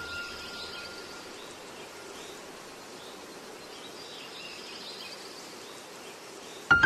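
Steady outdoor ambience, an even hiss with faint, scattered bird chirps, with a ringing tone fading away in the first second. Piano music comes in right at the end.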